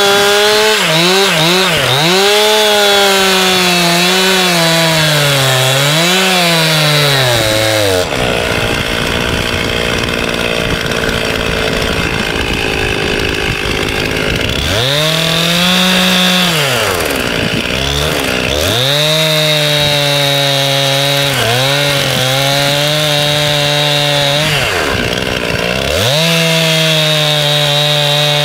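Two-stroke chainsaw cutting lengthwise along a log, its engine pitch sagging as the chain bites into the wood and climbing again as the load eases, over and over. About eight seconds in comes a stretch of several seconds of heavier, rougher cutting.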